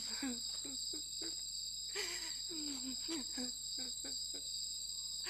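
Night insect chorus: crickets trilling steadily at two high pitches, with a quick irregular run of short low calls that each drop in pitch, and a brief rustling burst about two seconds in.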